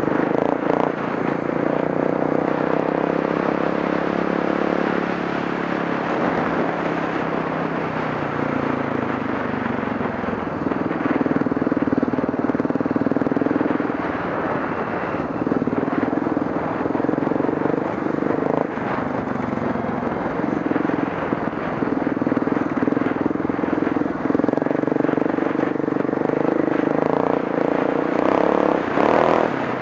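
Motorcycle engine running under way up a climbing road, its pitch falling and rising several times as the throttle opens and closes.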